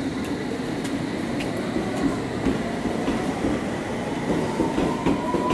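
London Underground S7 Stock train running along the platform, its wheels clicking over rail joints. A traction-motor whine rises in pitch over the last couple of seconds as the train speeds up.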